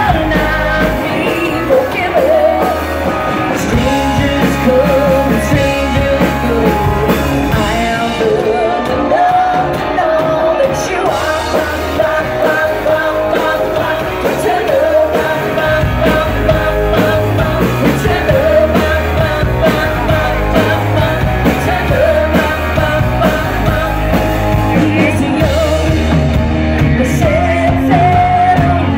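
A rock band playing live, heard from among the audience: electric guitar, bass guitar and drums, with a woman singing lead.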